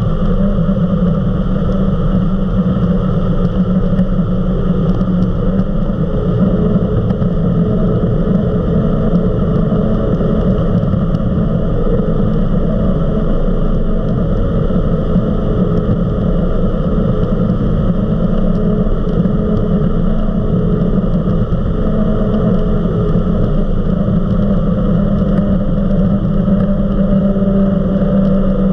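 Eliminator 31 XO Speedster powerboat running at around 60 mph: a loud, steady engine drone with the rush of the hull over the water.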